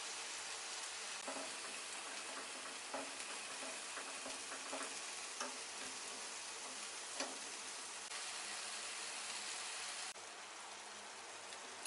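Food frying in a pan: a steady sizzle with scattered spits and pops. The sizzle drops a little near the end.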